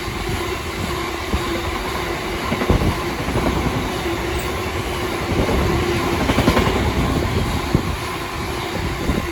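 Freight train hauled by a Class 66 diesel passing close by. Its wagons rumble steadily, with wheels clattering in quick irregular knocks over the rail joints and a faint steady tone above the rumble.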